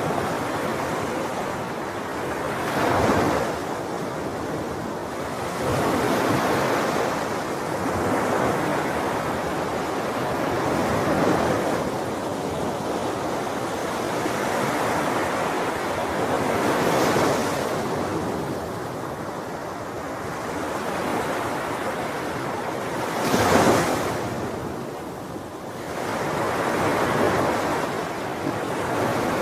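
Sea waves breaking and washing ashore in a continuous rush that swells and falls every few seconds, with the two loudest crashes about three seconds in and about three quarters of the way through.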